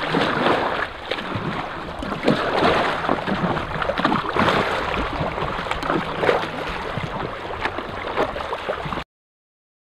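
Double-bladed kayak paddle splashing into the water stroke after stroke as an inflatable kayak is paddled away, over a steady rush of water and wind. The sound cuts off abruptly about nine seconds in.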